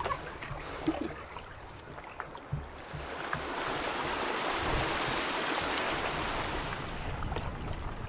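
Small waterfall running down a rock face into the lake: a steady rush of splashing water that swells in about three seconds in and eases off near the end. Before it, a few light knocks and water lapping against the canoe.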